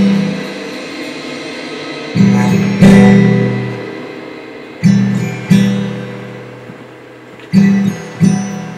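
Background music of an acoustic guitar strumming slow chords, struck in pairs about every two and a half seconds, each chord left ringing out.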